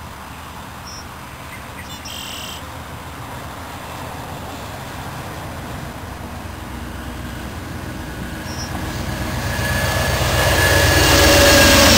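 VIA Rail passenger train drawn by a diesel locomotive approaching and passing, its engine rumble and wheel noise growing steadily louder and loudest in the last few seconds.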